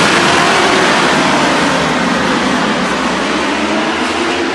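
A full grid of World Superbikes at full throttle as the pack launches off the start, many engines running together as one dense, loud roar. It fades slowly as the bikes pull away down the straight.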